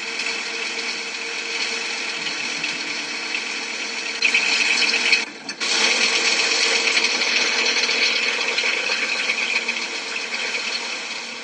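Film projector running with a steady, rapid mechanical clatter, briefly dropping away about five seconds in.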